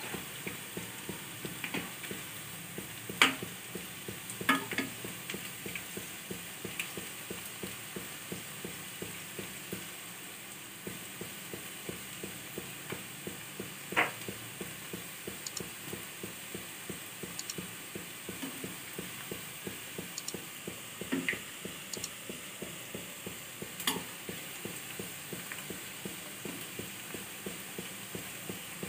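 Onion pakodi deep-frying in hot oil in a kadai: a steady sizzle with dense crackling. A metal slotted spoon clicks against the pan a few times as the fritters are turned, loudest about three seconds in.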